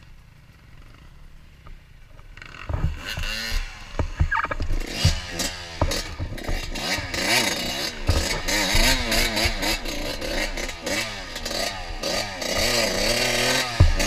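Dirt bike engine revving in quick, repeated up-and-down throttle blips, starting about two and a half seconds in, as the bike is worked along a steep, technical trail. A sharp thump comes near the end.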